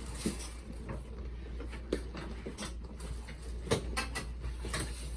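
A handful of short, sharp clicks and knocks during a chiropractic adjustment of a patient lying on his side, the strongest about two seconds in and just before four seconds in, over a steady low hum.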